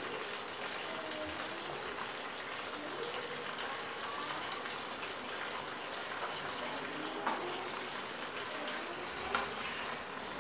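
Chicken pieces frying in oil in a pan, a steady sizzle. Two light knocks sound in the second half.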